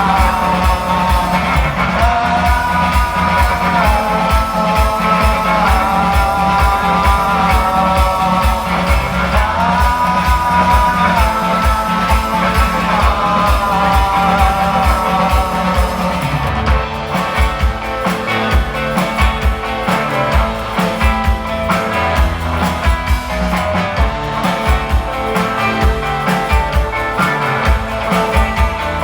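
Rock band playing live: electric guitar and bass over a steady driving drum beat, with sustained guitar lines and some singing.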